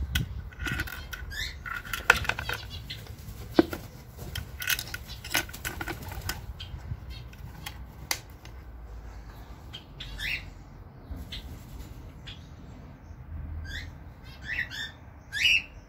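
Wooden nest box being handled, with scattered knocks and clicks and the rustle of nesting material through the first half. Several short bird chirps follow in the second half, the loudest near the end.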